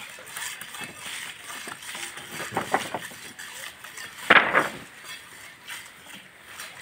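Metal hand tools scraping and clinking against wet concrete and rebar in short strokes, a few around the middle and the loudest about four seconds in.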